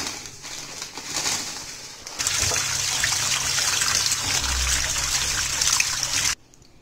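Tap water running in a steady stream onto poha (flattened rice) in a stainless steel mesh strainer while a hand rubs the flakes to wash them; it starts abruptly about two seconds in and cuts off suddenly near the end. Before it, dry poha flakes rustle as they are poured from a plastic packet into the strainer.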